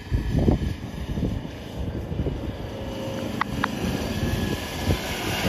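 An off-road 4x4's engine running, with wind rumbling on the microphone.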